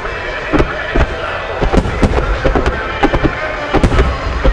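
Fireworks finale barrage: large aerial shells bursting in rapid, irregular succession, sharp booms several times a second over a continuous low rumble.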